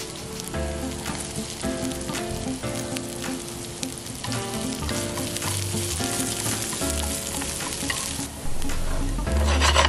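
Sliced onions sizzling in hot oil in a frying pan, stirred with wooden chopsticks that click against the pan. Soft background music plays underneath and grows louder near the end.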